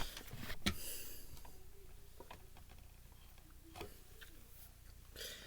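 A few faint clicks and taps of small plastic and metal parts from a disassembled Blu-ray player being handled, over quiet room tone.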